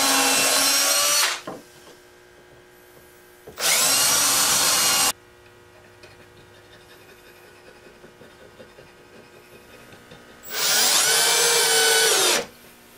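Cordless drill boring into wood in three bursts: one at the start, one about four seconds in, and one near the end. Each burst is a steady motor whine that dips slightly in pitch as the bit loads up.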